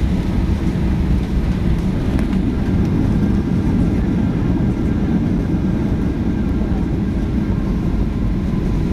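Steady cabin noise inside a Boeing 737-700 on landing: a loud low rumble from the CFM56-7B engine and airflow outside the window, with a faint steady whine above it.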